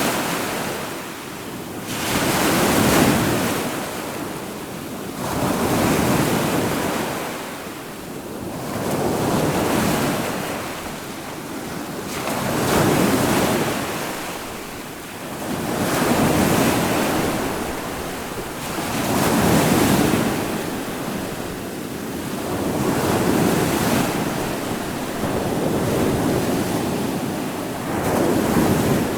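Ocean surf: waves breaking and washing in one after another, each surge swelling and falling back about every three to four seconds.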